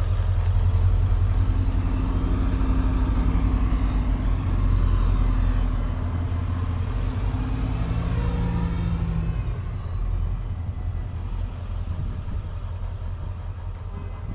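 Fire rescue truck's engine idling with a steady low rumble.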